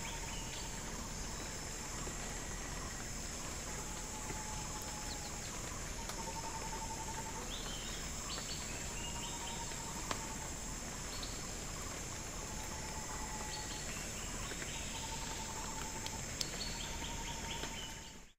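Bornean rainforest ambience: a steady high drone of cicadas and crickets, with a bird repeating a short trilled call every two to three seconds and other birds chipping higher up. It fades out at the very end.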